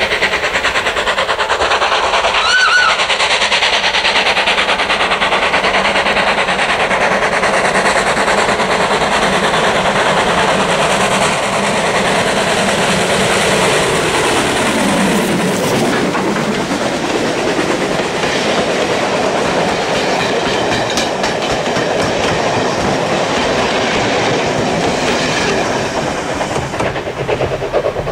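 LMS Ivatt class 2 2-6-0 steam locomotive 46512 running with its passenger train, a loud steady clatter of wheels and exhaust. A short whistle toot sounds about two and a half seconds in.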